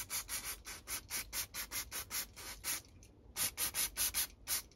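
Quick back-and-forth scrubbing strokes, about four or five a second, on small carburettor parts being cleaned. They pause briefly about three seconds in, then start again.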